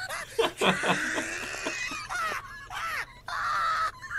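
Hysterical laughter in short, irregular bursts.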